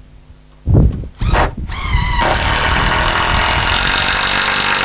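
Cordless drill-driver working on a timber purlin support: a couple of short bursts as the motor spins up, then running steadily at full speed for about two and a half seconds before cutting off suddenly.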